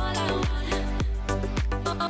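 Background music with a quick, steady beat and a bass line.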